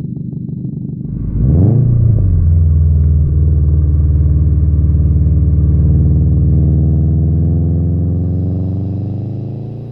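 Subaru WRX STI's turbocharged flat-four engine and exhaust: an uneven idle, a sharp rev about a second in, then a loud steady note whose pitch slowly falls as it fades near the end.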